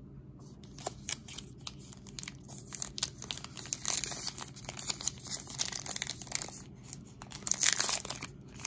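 Foil wrapper of a Topps trading-card pack crinkling and tearing as it is pulled open by hand: a run of crackles and rustles, loudest about four seconds in and again near the end.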